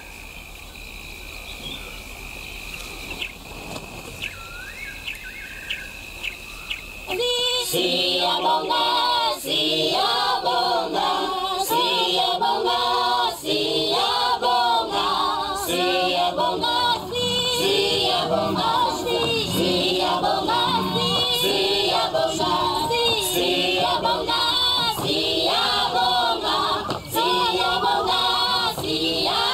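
A choir singing, coming in about seven seconds in and carrying on in repeated phrases. Before it, a quieter night ambience: a steady high drone with a few short chirps.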